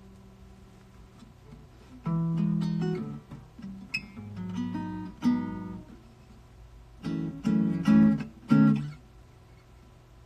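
Acoustic guitar strummed in chords. A chord rings out and fades over the first two seconds, then comes a series of short groups of strums, the loudest near the end.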